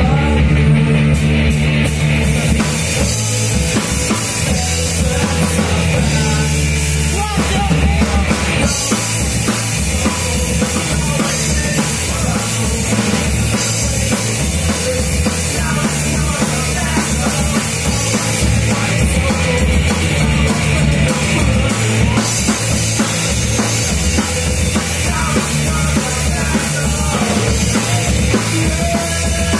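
Live rock band playing loud: electric guitar and bass over a full drum kit, with the drums and cymbals coming in about a second in and driving on.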